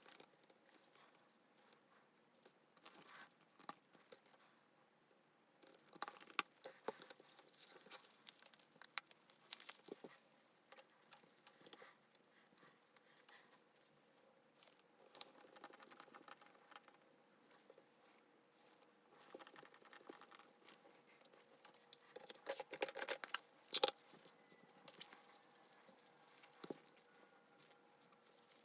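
Faint, scattered small clicks and taps of handling small tools and phone parts on a workbench during a phone repair, clustered in a few busy spells, over a faint steady hum.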